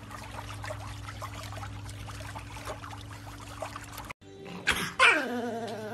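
A pug licking an ice pop: small wet licking clicks over a steady low hum. After a sudden break near the end comes a short vocal sound that slides down in pitch.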